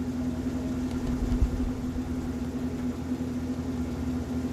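Steady motor drone with a low rumble, the background noise of a neighbour's cleaning machinery. There is a low thump about a second and a half in.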